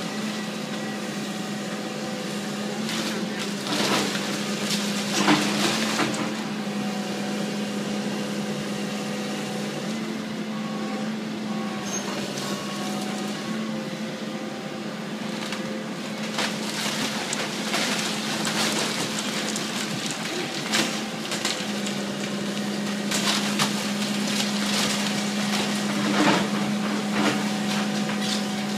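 Demolition of a wooden house: a machine engine runs with a steady hum while wood cracks and crunches. Loud cracks and knocks come about four to six seconds in and again near the end.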